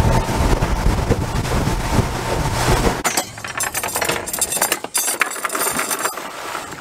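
Boat motor running with wind and water rushing past, then a cut about three seconds in to a metal anchor chain clinking and rattling as it is pulled up by hand.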